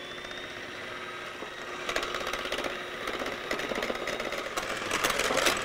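KitchenAid Professional 9 electric hand mixer running steadily with a high motor whine, its beaters whipping cream toward firm peaks in a ceramic mixing bowl. From about two seconds in, a rattling clatter of the beaters in the bowl joins the whine and grows loudest near the end.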